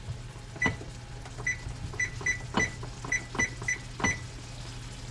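Electric oven's keypad beeping as its buttons are pressed to set the preheat temperature: about nine short, high beeps at uneven spacing, with a few light clicks among them.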